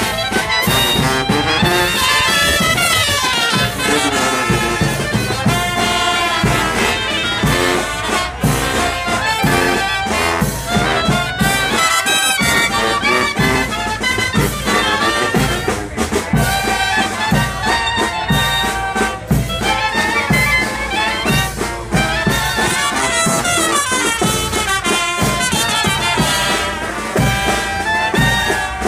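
Live brass band playing: sousaphone bass line with trumpets and other horns over a steady beat.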